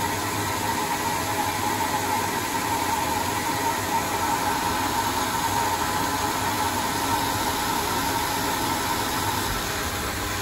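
Proto-Trak L2 CNC lathe running under program, its insert rough-turning the outside diameter of a propeller shaft: a steady machine hum and hiss with a faint steady whine that fades out near the end.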